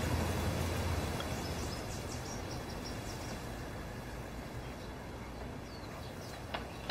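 Quiet outdoor ambience: a steady hiss that fades over the first couple of seconds, with scattered faint high chirps from birds or insects. There is a light click near the end.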